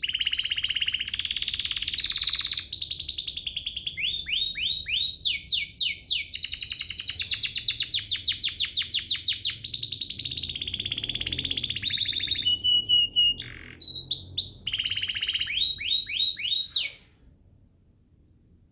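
Domestic canary singing: fast rolling trills and runs of repeated down-sweeping whistled notes, with a few short high chips, stopping abruptly near the end.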